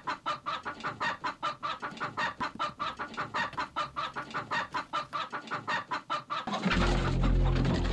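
A chicken clucking in a quick, even run of about five clucks a second. About six and a half seconds in the clucking stops and music with a steady deep bass comes in.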